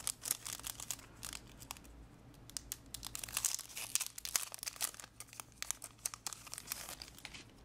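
Clear plastic sleeve crinkling as hands open it and work an enamel pin on its backing card out of it: a continual irregular crackle of many small clicks.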